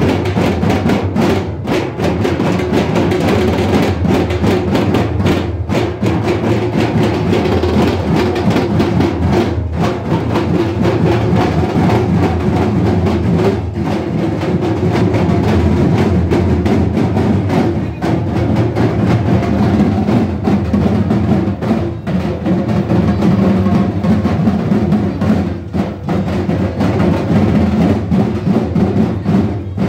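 Many large barrel drums beaten with sticks together, a loud, continuous drumming rhythm.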